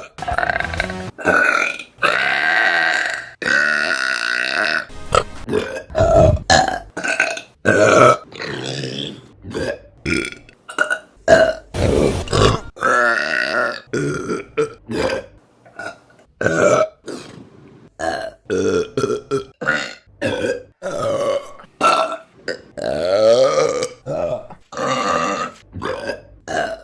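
Women burping, one burp after another in a rapid string of dozens. Most are short, and a few are drawn out over a second or more, each at its own pitch.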